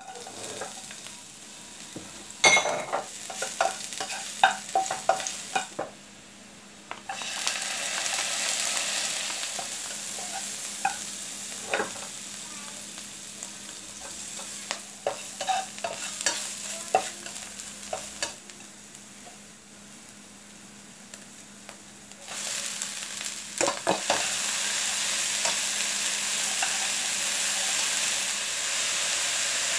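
Garlic, dried shrimp, shiitake and shredded napa cabbage sizzling in oil in a nonstick frying pan while a plastic spatula stirs and taps against the pan. The sizzling grows louder about 7 seconds in and again about 22 seconds in, with sharp taps scattered through it.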